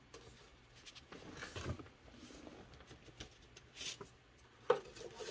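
A 5.25-inch floppy disk is slid into a Commodore 1571 disk drive, with soft scraping of the disk in its slot. Near the end there is a sharp click as the drive's door lever is turned shut.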